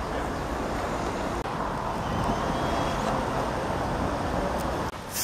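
Street traffic noise: a steady rumble of passing road vehicles, swelling a little in the middle.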